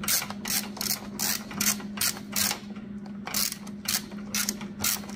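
Socket ratchet clicking in quick repeated strokes, about two to three a second, as it loosens the top shock-mounting bolt on a 1987 Yamaha TW200, over a steady low hum.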